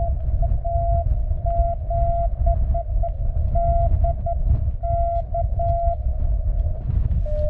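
Morse code (CW) from a portable 20-metre ham radio: a single mid-pitched tone keyed on and off in short and long beeps, over a steady low rumble.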